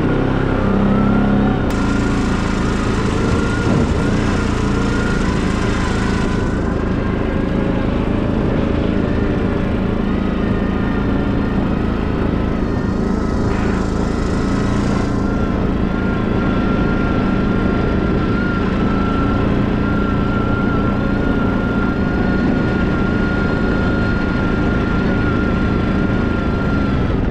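Quad bike (ATV) engine running steadily while riding, with an even engine note and a thin steady whine and no revving. A hiss swells and fades twice over it.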